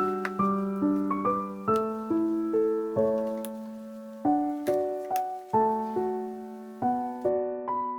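Background music: a slow, gentle piano melody of single struck notes over sustained bass notes.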